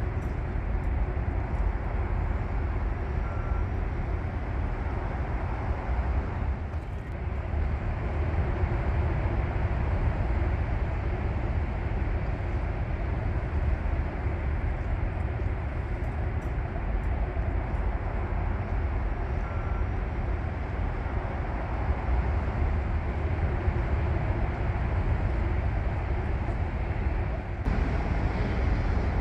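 Steady outdoor city ambience: a constant low rumble with an even hiss over it, the kind of sound distant traffic makes.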